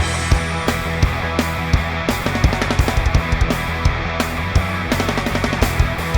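Rock music with drums, bass and distorted guitar, the full band coming in at the start after a drum intro.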